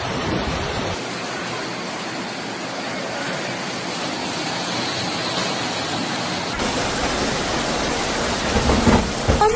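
Steady rushing noise of storm wind and heavy rain. The sound changes abruptly twice, about a second in and about two-thirds of the way through.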